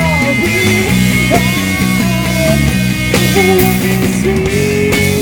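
Live rock band playing: a male singer sings into a microphone over electric guitar and drums, holding one long note in the second half.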